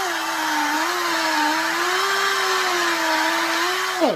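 Pneumatic rotary buffer running at speed with a wool pad, a steady whine over air hiss, while the spinning pad is cleaned of old compound against a pad-cleaning spur. The whine drops in pitch and stops near the end as the buffer is let off.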